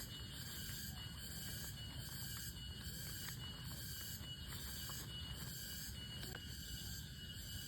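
Insects chirping in a steady high-pitched chorus that pulses about twice a second, over a low rumble.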